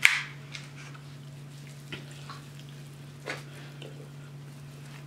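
Kitchen handling sounds: a sharp knock at the start, then a few light clicks and taps over a steady low hum.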